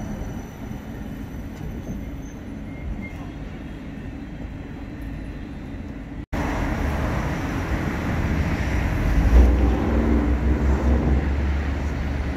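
CAF Urbos 100 tram running, a steady low rumble. It cuts off suddenly about six seconds in and comes back louder, loudest about nine seconds in.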